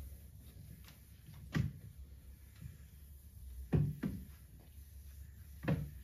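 Light knocks of objects being handled and set down on a wooden sideboard as it is wiped down: once about a second and a half in, twice in quick succession near the middle, and once near the end, over a low steady hum.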